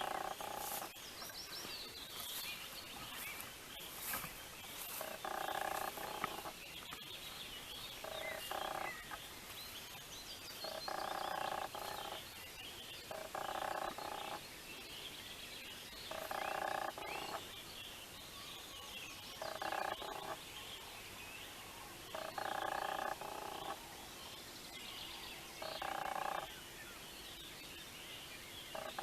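A frog croaking over and over, one call of about a second every two to three seconds, with fainter high chirping going on behind.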